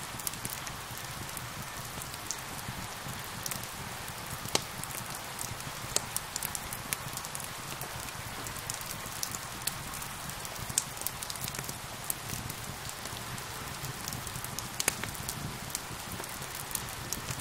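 Steady rain falling, with a wood fire crackling over it in frequent irregular sharp pops, a few louder snaps standing out.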